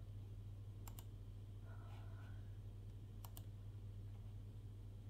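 Computer mouse double-clicking twice, a pair of sharp clicks about a second in and another a little after three seconds, over a steady low hum.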